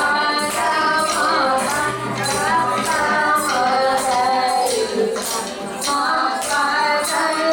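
Recorded dance song: a woman sings a winding melody over a steady jingling percussion beat, about two strokes a second.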